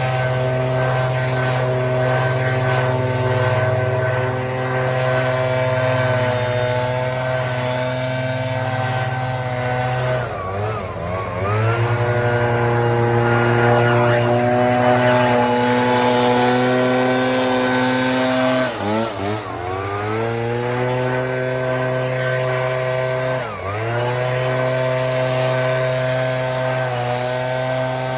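Two-stroke backpack leaf blower running at high throttle, blowing water and debris off a wet driveway. The throttle is eased off and opened back up about ten seconds in and again just before twenty seconds, with a quick dip a few seconds later.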